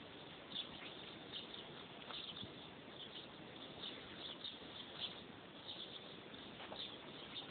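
Faint outdoor background hiss with brief high chirps every second or so; the scooter's engine is not running.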